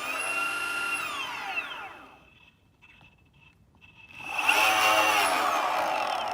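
Boosted Stealth electric skateboard's back left drive motor, spun up and down twice with the wheel turning freely. It gives an electric whine that rises and falls in pitch, slowing to a stop about 2 s in and speeding up again about 4 s in. This is the motor the owner has found to be faulty, making loud clicking noises.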